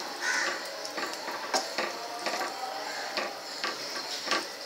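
Plastic spatula stirring a watery curry in a kadhai, scraping and knocking lightly against the pan many times at an uneven pace, over a faint sizzle.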